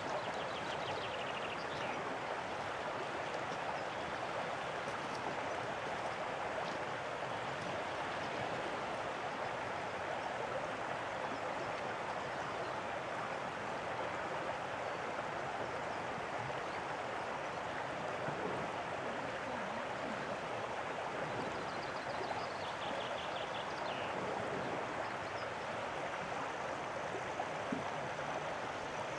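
Steady rush and trickle of moving water, like shallow water running over shingle where the stream meets the sea inlet.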